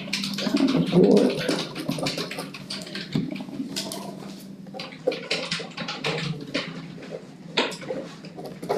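Papers rustling and a pen scratching as a form is filled out and handled on a conference table, in irregular short scratches and clicks over a low steady hum.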